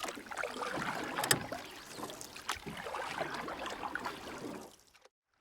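Canoe being paddled: water splashing and swishing around the paddle strokes, with a few sharp knocks and wind on the microphone. The sound cuts off to silence near the end.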